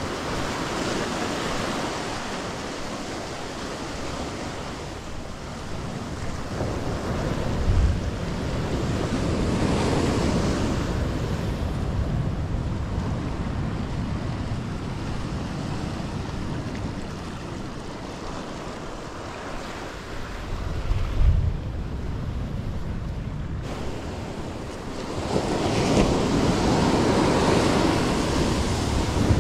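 Ocean surf breaking and washing up the beach, swelling and fading in waves, with wind rumbling on the microphone in gusts. A wave comes in louder about a third of the way through and again near the end.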